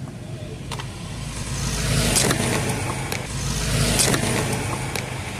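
Car running, heard from inside the cabin, with a few knocks and rustles as a phone is moved about.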